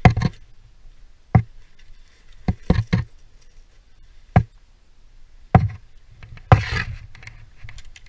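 Sharp knocks and clacks of rope access gear being handled on the harness, about eight irregular strikes, with a short rustling scrape about six and a half seconds in.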